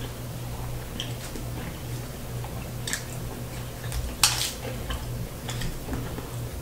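Small clicks and rustles of fingers handling crisp breaded fried pork chops on a metal tray, with one louder crunch of the fried crust about four seconds in. A low steady hum runs underneath.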